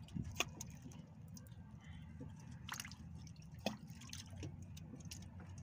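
Water dripping and small wet clicks on the boat's deck, scattered and uneven, with two sharper taps about half a second in and just under four seconds in, over a low steady hum.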